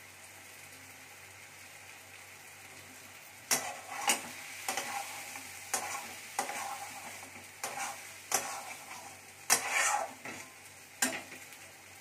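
Wooden spatula stirring and scraping a frying dal and egg mixture in a steel kadhai. A steady faint sizzle is heard alone at first, then from about three and a half seconds in comes a run of irregular sharp scrapes and knocks against the pan.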